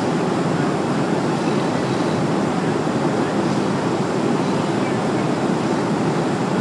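Steady cabin noise of a jet airliner in flight: engine and airflow noise, even and unbroken.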